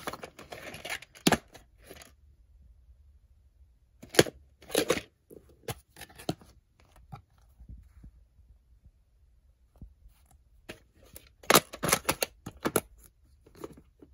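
A clear plastic VHS clamshell case being handled: clicks, snaps and knocks of the plastic case and the tape inside, with a brief rustle at the start. The clicks come in three bunches, at the start, around the middle and near the end.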